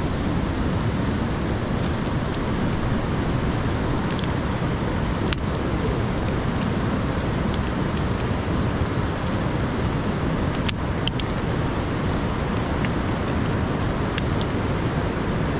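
Steady rushing of a fast-flowing river, an even noise that does not let up, with a few faint clicks.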